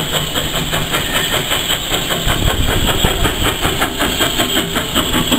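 Steam tank locomotive working close by: rapid, even chuffing over a steady hiss of steam.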